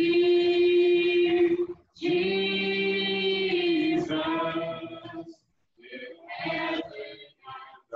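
A small group of women's, men's and children's voices singing a church song from Niger unaccompanied: long held notes, a short breath just under two seconds in, then shorter phrases broken by pauses.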